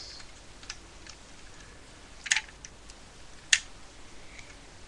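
Hard plastic clicks and taps of a Lego fire truck and its ladder being handled. The clicks are scattered, with a small cluster just past two seconds in and the sharpest click about three and a half seconds in.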